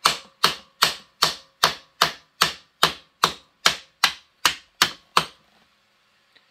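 Plastic-faced hammer tapping the new indexing cam of a Frankford Arsenal X-10 reloading press into its bearing: a steady run of about fourteen sharp taps, roughly two and a half a second, stopping about five seconds in. The new cam is a tight fit in the bearing and has to be driven in.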